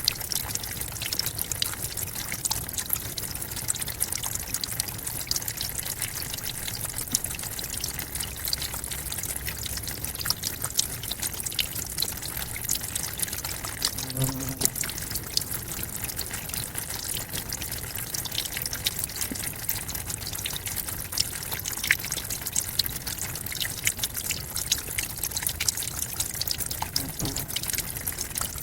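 Forest waterfall running steadily: a constant rush of falling water with fine splashing and spattering throughout. About halfway through, a brief low pitched sound rises briefly above the water.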